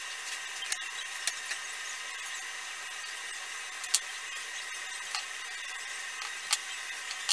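A steady high hiss with a faint whine, broken by a few sharp clicks and taps from hands working along wooden cabinet frames.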